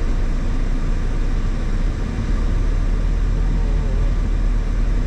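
Steady driving noise from a Mazda Roadster on the move: engine and road rumble, heaviest at the low end.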